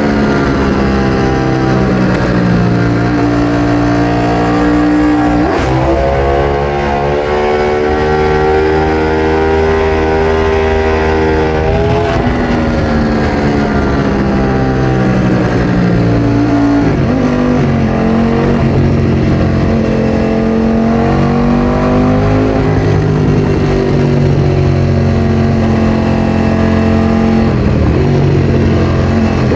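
Ducati Streetfighter V4S's 1103 cc Desmosedici Stradale V4 running through an Akrapovič exhaust while being ridden hard. The engine note climbs under acceleration, drops sharply about five and a half seconds in as it shifts up, and climbs again. It falls away off the throttle from about twelve seconds, then builds again.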